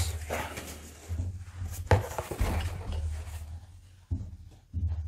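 Handling noise as a pistol and its packaging are lifted and moved: rubbing and rustling with several knocks, the sharpest about two seconds in.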